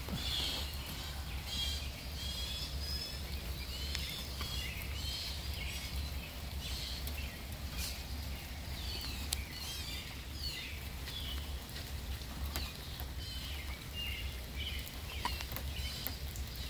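Steady rain pattering, with birds chirping and singing over it again and again, and a few sharp ticks of dripping water.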